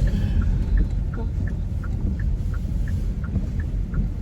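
Inside a moving car: steady low road and engine rumble, with a short, even tick repeating about three times a second.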